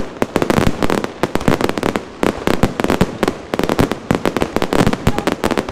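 Aerial fireworks shells bursting overhead in rapid succession: a dense, continuous string of sharp bangs and crackles, many per second.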